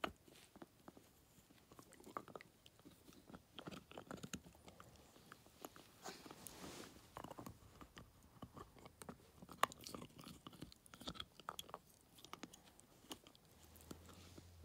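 Miniature schnauzer gnawing a chew stick: faint, irregular crunches and clicks of teeth working on the chew, with one sharper click about ten seconds in.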